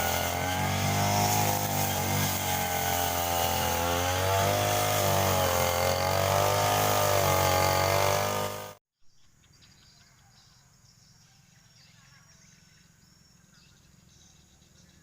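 Petrol grass cutter (brush cutter) engine running, its pitch wavering up and down with throttle and load as it cuts grass. It cuts off abruptly about nine seconds in, leaving a faint background of insect chirping.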